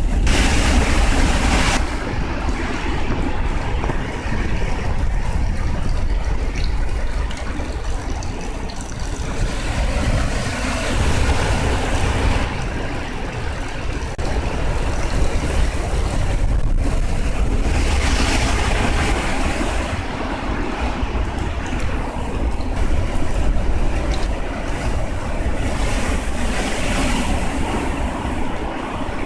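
Heavy storm surf from a distant typhoon breaking on the shore, swelling up four times about eight seconds apart, with strong wind buffeting the microphone in a steady low rumble.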